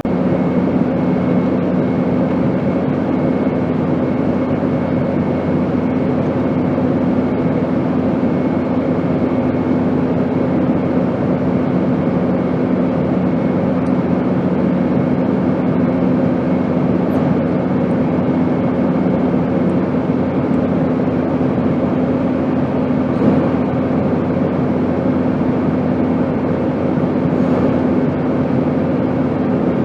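Steady airplane engine noise: an even rushing hiss with a constant low hum underneath and a faint high whine.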